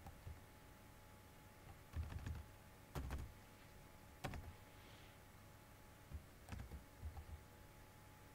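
A few scattered keystrokes on a computer keyboard, faint single key presses about a second or two apart, over a faint steady hum.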